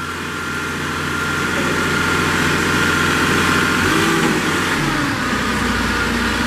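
Three-cylinder diesel engine of a Moffett M8 55.3 truck-mounted forklift running while the hydraulic reach mast moves in and out, with a steady whine over the engine. The engine gets louder over the first couple of seconds, and its note shifts about four to five seconds in.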